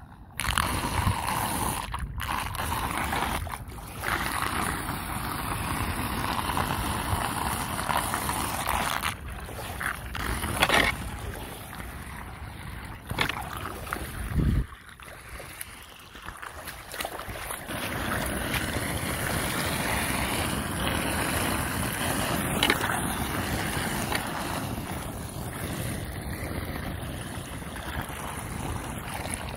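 Floodwater rushing down a cleared street storm drain, with whirlpool swirls forming over the grate. It is a steady watery rush that starts abruptly just after the beginning.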